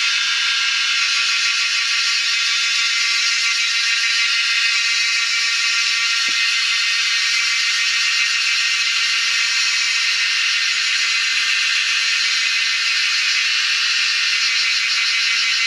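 An insect chorus makes a steady, high-pitched buzzing drone without a break or change in level.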